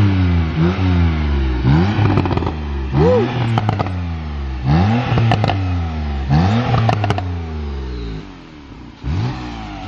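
Porsche 911 Carrera T (991.2) twin-turbo flat-six revved in a string of quick throttle blips through a newly fitted, freer-flowing valved exhaust. The pitch rises sharply and drops back roughly once a second, with crackles and pops on the overrun between blips. The revving eases off briefly near the end before one last blip.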